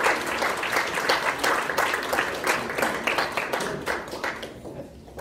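Audience applauding: dense clapping that thins out and dies away about four and a half seconds in.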